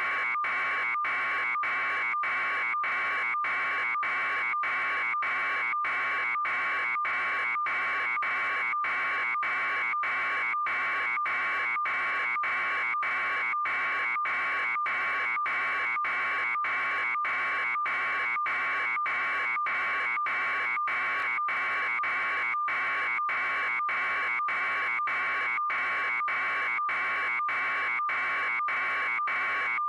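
A steady buzzing tone pitched around 1 kHz, cut by brief regular dropouts about twice a second.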